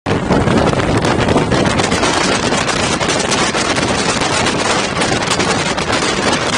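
Steady, loud wind rush buffeting the microphone of a camera held out of a moving bus's window, with the bus's running noise underneath.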